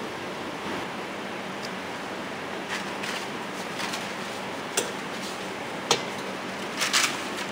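A few light sharp clicks and taps from a plastic sheet being handled on a hot-wire plastic-bending box, the last few close together near the end, over a steady hiss of room noise.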